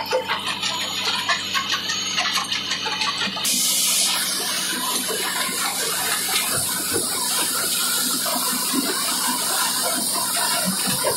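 McCloskey J50 tracked jaw crusher running, rock clattering and grinding through its feed hopper and jaws, over a steady low machine hum. About a third of the way in the sound turns louder and brighter, a dense rushing noise.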